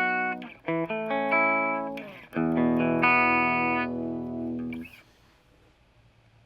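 Electric guitar played through a Marshall Master Reverb 30 valve amp: several chords strummed and left ringing, then muted about five seconds in, leaving only faint amp hiss.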